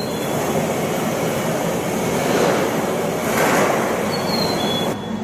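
Shinkansen train running on the line: a loud, steady rush of rolling and wind noise that swells in the middle, with faint short high squeals. The noise cuts off abruptly near the end.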